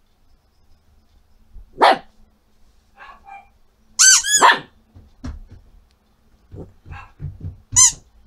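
Small Yorkshire terrier giving short, high-pitched play barks at a ball: one about two seconds in, two in quick succession around four seconds, and one near the end.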